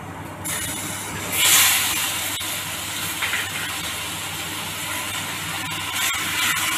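Wet bottle gourd pieces hitting hot oil and fried onions in a kadai: a sizzle that starts about half a second in and is loudest at around a second and a half. It then carries on as a steady sizzle while a metal spatula stirs, with a few clicks of the spatula against the pan.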